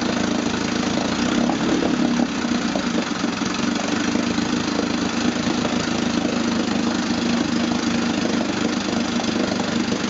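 1958 Evinrude Fastwin 18 HP two-stroke twin outboard idling steadily and smoothly, with water churning in the test tank around its lower unit.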